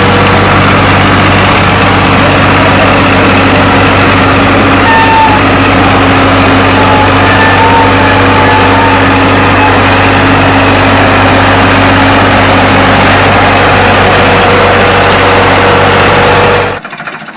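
Farm tractor's diesel engine running loud and steady under heavy load while it pulls a loaded trolley up out of a dirt pit. The sound cuts off abruptly near the end.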